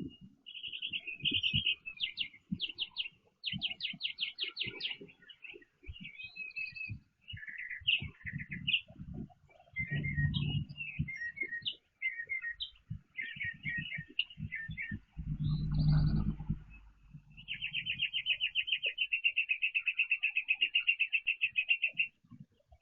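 Small wild songbirds chirping and trilling in quick, varied phrases, with one long, even trill near the end. Low rumbling thumps come in twice around the middle.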